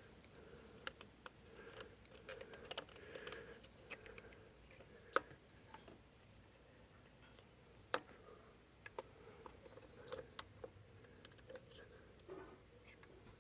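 Faint, scattered clicks and light taps of engine parts and tools being handled during motorcycle engine reassembly, with a few sharper clicks about five and eight seconds in.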